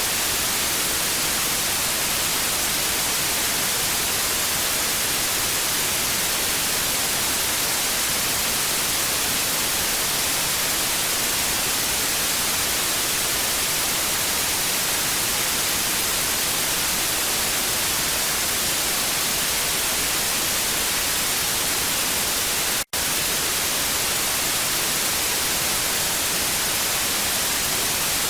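Steady television static: an even, bright hiss with most of its energy in the high end, broken once by a split-second gap about three quarters of the way through.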